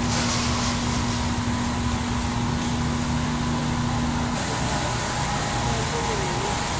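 Steady hum of a warehouse store's refrigerated display cases and ventilation, with a low steady tone that cuts off abruptly about four seconds in.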